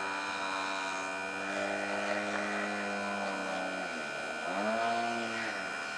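Radio-controlled Extreme Flight Extra aerobatic model plane's motor and propeller running at a steady pitch, then dropping sharply about four seconds in, surging back up and falling away again.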